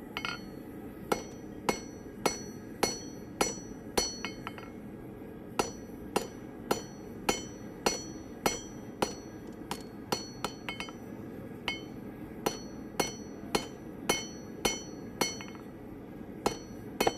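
Hand forging hammer striking hot steel on an anvil at a steady pace, about two blows a second, with a short pause near the middle; each blow rings.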